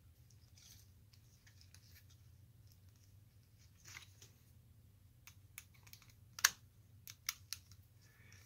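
Sparse light clicks and taps of small metal parts as the wires are hooked under the terminal screws of a brass lamp socket's interior and a screwdriver works a screw, with the sharpest clicks clustered about six to seven and a half seconds in, over a faint low hum.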